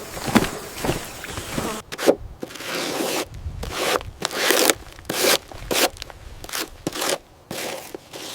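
A series of irregular crunching and scraping noises, a dozen or so short bursts of differing loudness.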